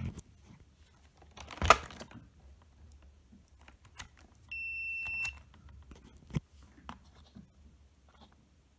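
Fluke 113 multimeter's beeper giving one steady high beep of under a second, about halfway through, with a single loud knock a couple of seconds before it and light clicks of the meter and probes being handled.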